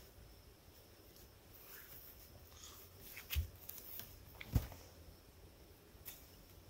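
Faint rustling of nylon cord being wrapped and pulled tight around lashed wooden poles, with two dull knocks about a second apart in the middle.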